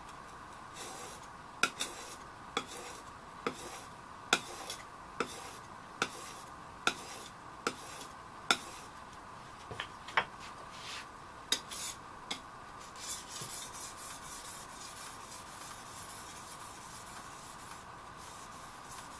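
An A2 steel blade being honed on a Norton translucent Arkansas stone, with a run of rubbing strokes. For the first eight seconds or so each stroke ends in a sharp tick, about one a second; in the last few seconds the rubbing turns quicker and denser.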